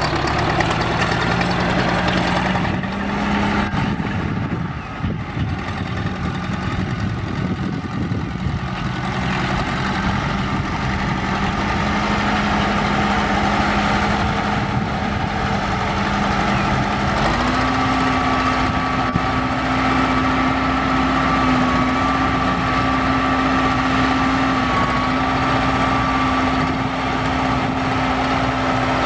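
1960 Massey-Ferguson 85 tractor's Continental four-cylinder diesel engine running steadily as the tractor drives. About two-thirds of the way through the engine speed steps up and then holds steady.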